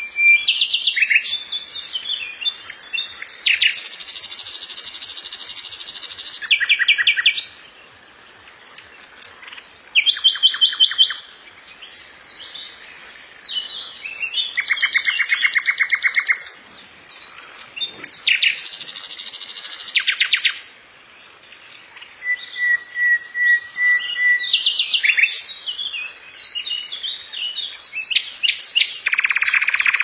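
Common nightingale singing: a series of varied phrases one to three seconds long, each a fast run of repeated notes or rattling trills, with short pauses between them. A long, level whistled note comes about three-quarters of the way through.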